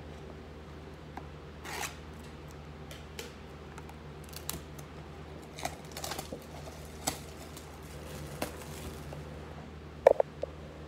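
A trading-card blaster box being opened by hand: scattered crinkles, tears and rustles of cardboard and the cellophane wrapping of the packs inside. A couple of sharp knocks near the end, the loudest sounds, as something is set down on the table.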